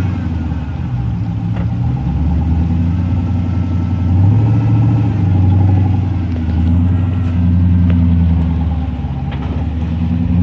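Twin-turbo 5.3-litre V8 in a Jeep running at low revs while creek crawling, its low engine note swelling and easing as the throttle is worked.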